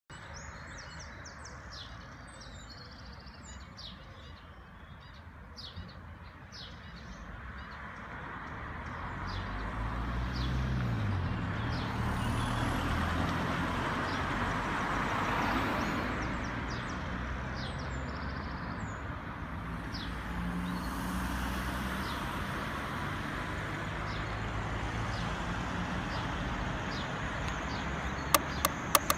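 Street ambience: small birds chirping, then a car approaching and driving past, its engine and tyre noise loudest about halfway through. A few sharp clicks come near the end.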